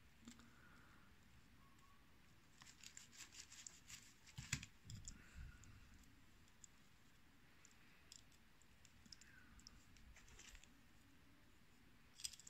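Snap-off utility knife blade slicing through a San Pedro cactus stem: faint crisp clicks and crunches in two runs, with a sharper click near the end.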